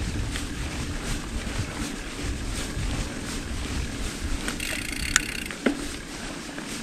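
Mountain bike being ridden over a trail: wind rushing over the microphone with a low rumble from the tyres and bike, and two sharp clacks a little past halfway.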